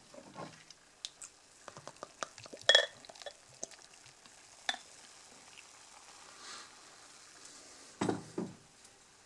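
Wheat-beer mix poured from a glass bottle into a glass beer mug: faint fizzing of the pour and foam, with small clinks and taps of glass on glass, the sharpest one about three seconds in. A short louder sound comes near the end.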